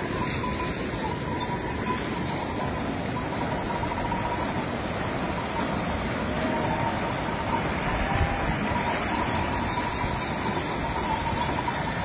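Steady rushing of a shallow mountain river, with a faint, steady high tone running through it.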